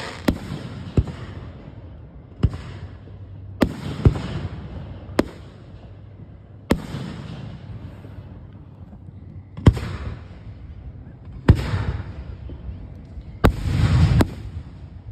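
Aerial firework shells bursting overhead: about eleven sharp booms, one to three seconds apart, each trailing off in a low rolling rumble. Near the end two bursts come close together with a denser crackle between them.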